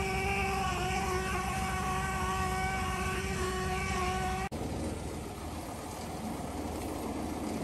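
A motor running steadily with a high-pitched hum over a low rumble. It cuts off abruptly about halfway through and gives way to a rougher, lower engine rumble without the hum.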